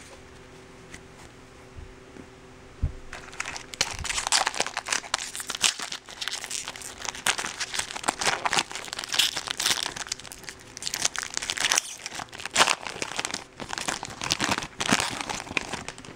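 Foil wrapper of a 2013 Bowman baseball card pack crinkling and tearing as it is opened by hand. It is a dense, irregular run of crackles that starts about three seconds in.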